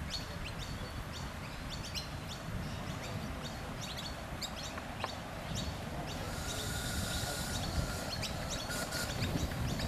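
Ride-on miniature live-steam locomotive, a model of NSWGR Standard Goods class 5108, running with a driver aboard: a run of short sharp ticks over a steady low rumble, with a hiss of steam from about six and a half seconds in until about nine.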